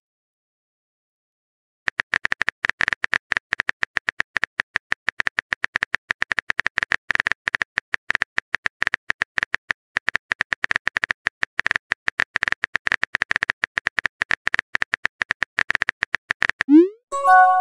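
Phone-keyboard typing sound effect from a chat-story app: a long, rapid run of light, sharp clicks starting about two seconds in, followed near the end by a short rising pop.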